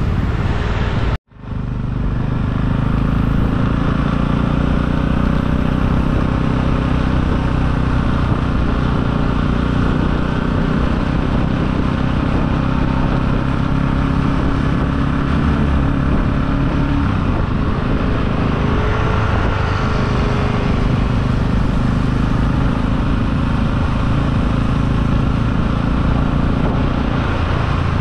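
Motor scooter under way on a road: a steady engine drone mixed with wind and road noise. The sound cuts out briefly about a second in.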